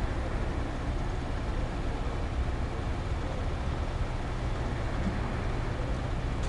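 Steady low rumble of mobile cranes' truck diesel engines running to power a lift.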